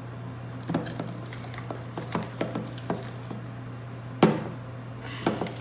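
Homemade slime being stirred and worked in a plastic pot: soft sticky squelches and small clicks, with one louder knock about four seconds in, over a steady low hum.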